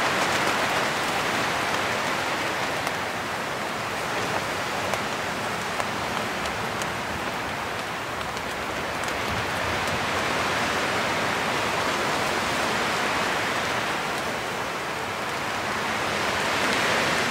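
Heavy rain and gusting wind beating on the fly of a The North Face Triarch 2 tent, heard from inside. It is a steady wash of rain with scattered drop ticks that swells and eases with the gusts, loud enough that the microphone was too loud.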